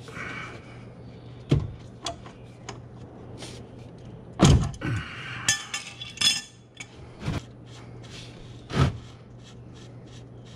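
Wrench clanking and clinking against the oil-pan drain plug of a flathead engine as the plug is knocked loose: several sharp metallic knocks a second or more apart, the loudest about four and a half seconds in, over a steady low hum.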